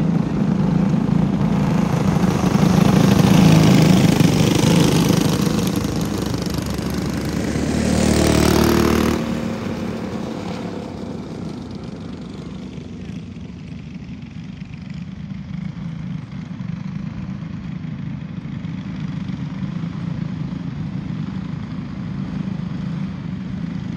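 Racing go-kart engines running hard as a pack of three karts passes close by on a dirt oval, loudest about three to four seconds in and again around eight seconds. Then they settle to a steady, more distant drone as the karts run down the far straight.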